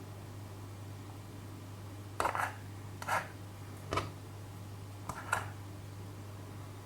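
Four short scrapes and knocks of things being handled at a table, about a second apart, over a steady low hum.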